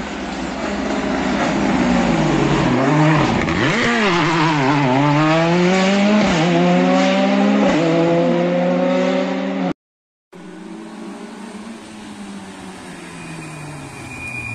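Rally car engine revving hard through a hairpin. Its pitch dips and climbs back about four seconds in, then rises in steps through the gear changes. The sound cuts off abruptly and resumes quieter with another car's engine, which grows louder near the end.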